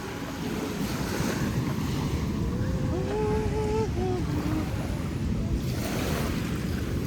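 Ocean surf and wind buffeting the microphone at the shore, a steady rushing noise, with a brief faint pitched call about three seconds in.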